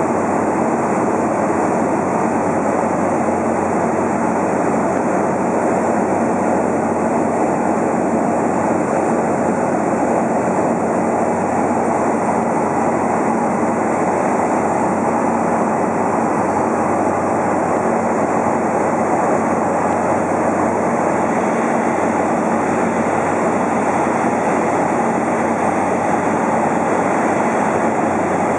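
Cabin noise of a Cessna in flight: the engine and propeller make a steady, loud drone that holds at the same level throughout.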